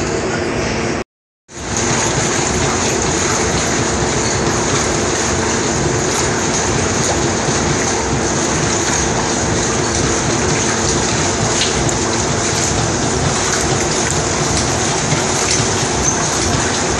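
Water churning and splashing steadily around a horse swimming in a narrow equine swimming pool, with a steady low hum underneath. The sound cuts out briefly about a second in.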